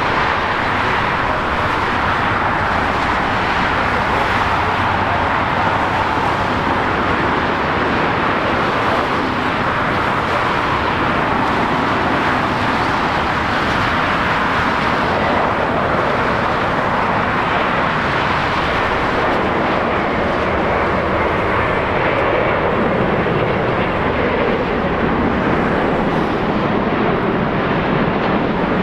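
Steady rushing jet aircraft engine noise, even and unbroken, with no rise or fall.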